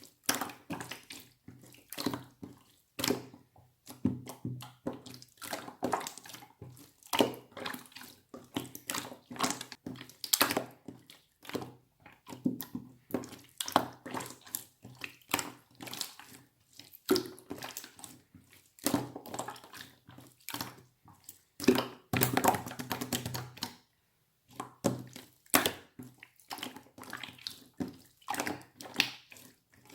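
Hands squeezing, pressing and stretching slime, giving a quick irregular run of wet squishing and small popping clicks. It drops out for a moment about four-fifths of the way through.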